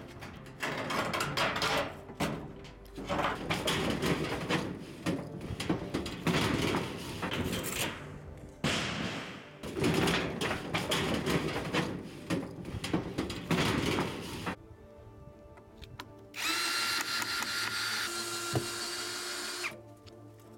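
Sheets of corrugated metal roofing being pried up and pulled off, rattling, scraping and knocking for about the first fourteen seconds. Near the end a cordless drill whirs for about three seconds, its pitch stepping as it runs.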